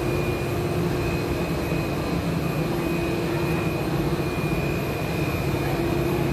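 Cable car terminal machinery running: a steady loud mechanical hum with a thin high whine, as the gondolas and haul rope pass through the station's overhead wheels.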